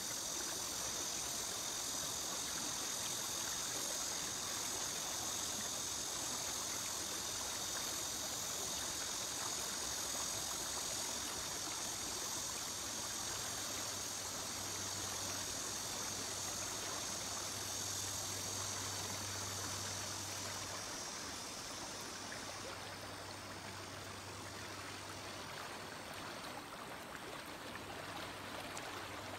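Shallow river riffle: water rushing steadily over stones in an even, continuous hiss that eases slightly about two-thirds of the way through.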